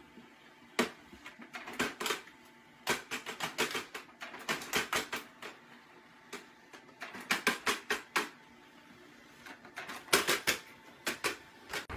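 Desktop multifunction printer printing: irregular runs of quick mechanical clicks and clunks as it feeds and ejects paper.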